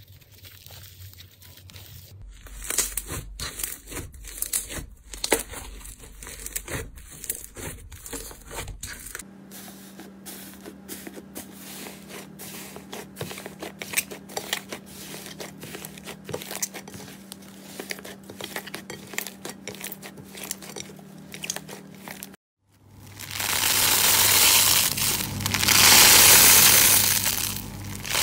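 Slime being handled with the fingers, giving dense runs of small clicks, pops and crackles across a few cut-together clips, one of them over a steady low hum. Near the end comes a louder, even, crunchy rustle that swells twice.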